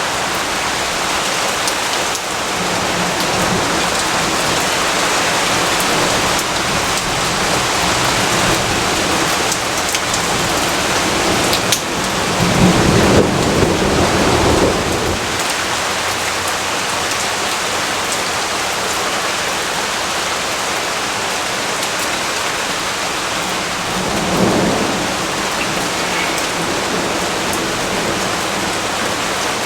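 Steady rainfall hissing, with a low rumble of thunder swelling about twelve seconds in for a few seconds and a shorter, fainter rumble later on.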